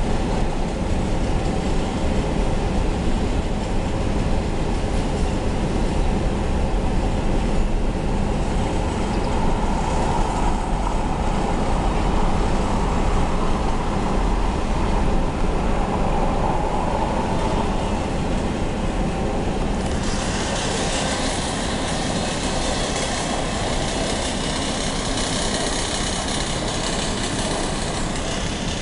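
Double-stack container freight train rolling past, a steady rumble of wagon wheels on the rails. About two-thirds of the way in, a brighter hiss joins the rumble.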